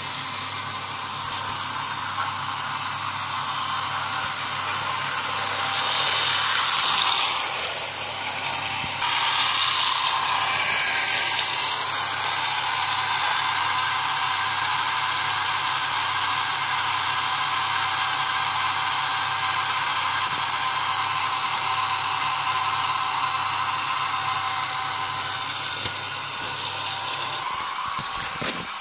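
Toy electric train running on plastic track: a steady, high-pitched motor whine with wheel rattle, growing louder between about 6 and 12 seconds in as the locomotive comes close, then easing off slightly near the end.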